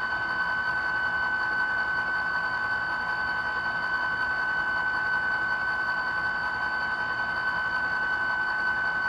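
The ESU LokSound decoder in a ScaleTrains model of a CSX SD40-3 plays the locomotive's EMD 16-645 diesel idling through the model's small speaker. It is a steady drone with a constant high whine running through it.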